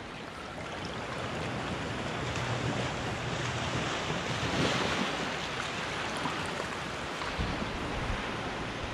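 Small waves breaking and washing up a sandy shore, swelling about halfway through and then easing, with wind rumbling on the microphone near the end.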